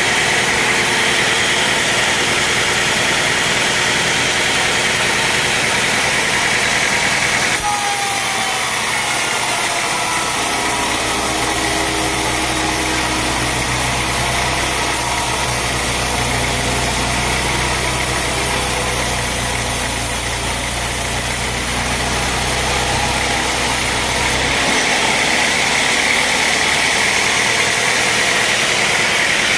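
Sawmill machinery running steadily with an engine-like drone. The sound changes abruptly about a third of the way in, to a steadier, deeper hum, and switches back near the end.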